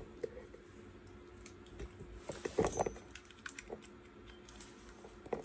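Scattered small plastic clicks and rattles, with a denser cluster about two and a half seconds in: handling noise as a camera battery charger is plugged into an extension cord.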